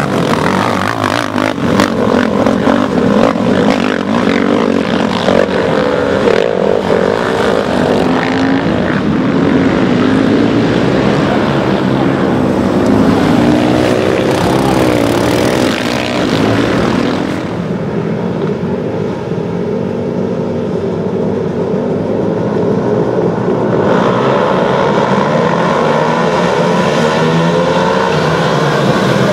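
Several sport quad bike (ATV) engines racing on the track, revving hard and easing off, their pitch rising and falling as they pass. About seventeen seconds in the sound dips and thins, then builds again near the end.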